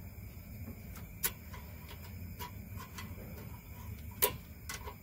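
Small spanner clicking against the clutch cable's clamp nut and lever while the nut is tightened: scattered light metal ticks, the sharpest about a second in and again near the end, over a low steady hum.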